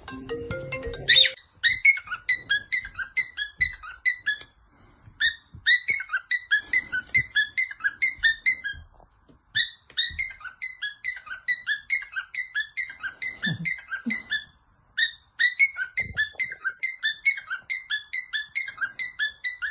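Cockatiel imitating an alarm clock: rapid high beeping chirps, about four a second, in runs of a few seconds with short breaks between them.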